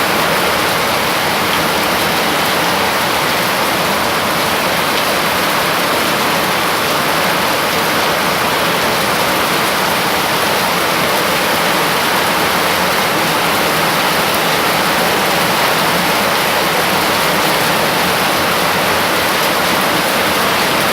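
Heavy rain pouring down in a loud, steady downpour.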